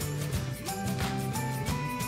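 Background music with a steady beat and held melody notes.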